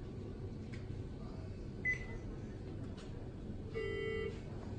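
Electronic beep from hospital bedside equipment: a half-second pitched tone about four seconds in, repeating a few seconds apart, with a short higher blip about two seconds in. A steady low room hum lies underneath.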